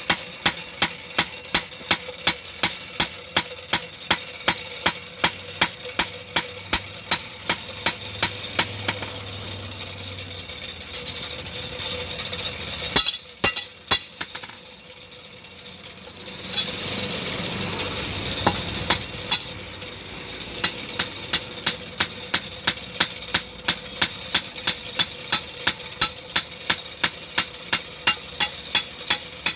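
Blacksmith's hand hammer striking a steel blade on an iron block anvil: steady blows, about two or three a second, each with a sharp metallic ring. The blows break off for several seconds in the middle, then resume.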